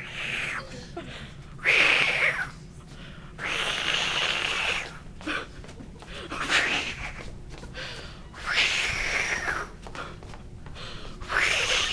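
Repeated breathy whooshing bursts from a person, about one every two seconds, each lasting about a second.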